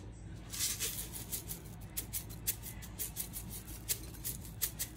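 Sugar sprinkles rattling in their container as it is shaken over a bowl of whipped cream, a quick irregular run of light clicks and rattles.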